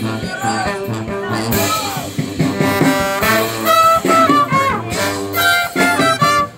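Live brass band playing a jazzy tune: trumpets and trombone carrying the melody over a tuba and a drum kit.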